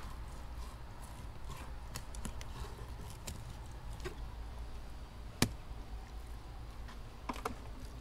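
Faint taps and scrapes of a fillet knife working a speckled trout on a cutting surface, with one sharper knock about five and a half seconds in, over a steady low rumble.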